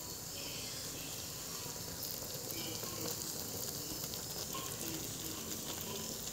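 Instant noodle soup cooking in a wok, a steady sizzling hiss from the simmering broth.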